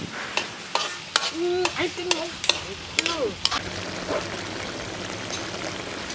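A metal spatula scraping and clanking against a steel wok while pieces of eel with garlic are stir-fried, with sharp knocks for the first few seconds. After that the wok settles into a steady sizzle as the sauce bubbles around the eel.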